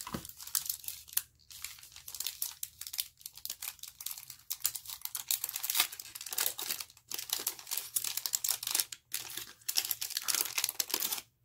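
Crinkly product packaging being handled and unwrapped to take out a lotion bar: quick runs of crackling with a few short pauses.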